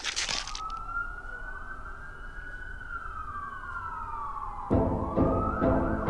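A short whoosh of noise, then a single long siren-like tone that rises a little and slowly falls over about four seconds. Music with a steady beat comes in loudly about five seconds in.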